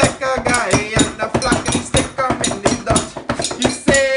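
Fast, rhythmic knocking and banging on household furniture, like drumming on a metal bar stool and a countertop, with voices chanting over it and a louder sung line near the end.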